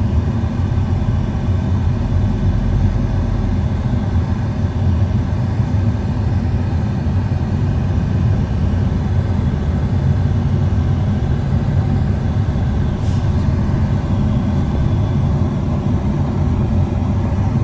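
Steady, loud low rumble of vehicle noise, unbroken throughout.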